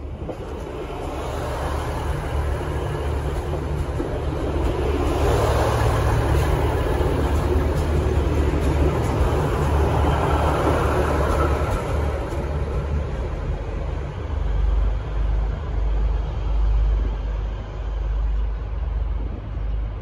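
V/Line VLocity diesel multiple unit pulling out and passing close by, its diesel engines and wheels on the rails building over the first few seconds. It is loudest from about five to twelve seconds in, then eases as the train draws away.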